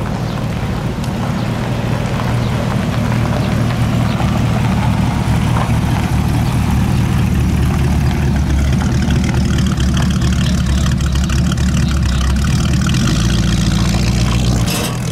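A 1930s Ford three-window coupe hot rod's engine running with a low, steady rumble as the car drives slowly away, growing louder over the first few seconds.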